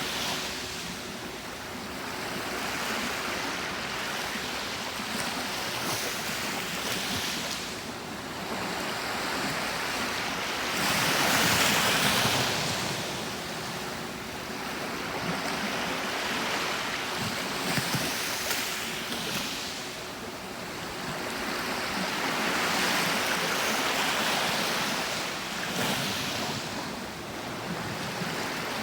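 Gentle sea waves breaking and washing up a beach, the rush swelling and fading every few seconds, loudest about a third of the way in.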